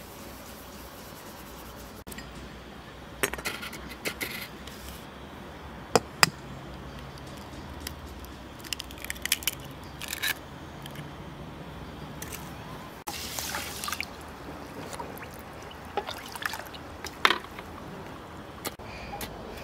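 A thin trickle of liquid poured into a bowl of minced meat, then hands working in a bowl of grain soaking in water. Scattered small splashes and clicks come over a low steady background.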